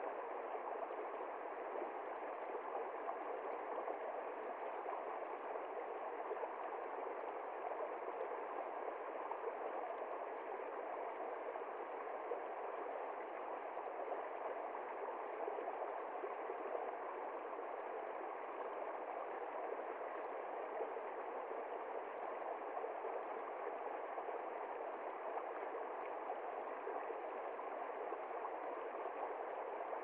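Small stream flowing over rocks, a steady, even rush of running water.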